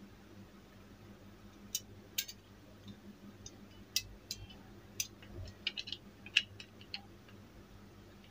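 Sharp plastic clicks and taps as a TV remote's circuit board is fitted back into its plastic case. The clicks come a second or so apart at first, then in a quick run about five to six and a half seconds in, with the loudest click in that run.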